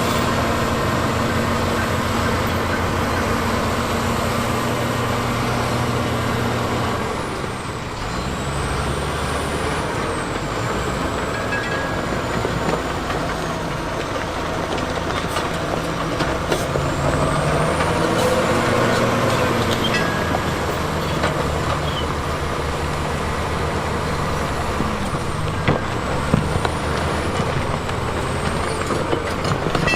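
Diesel engine of heavy earthmoving machinery running under work, its pitch shifting a few times as revs and load change.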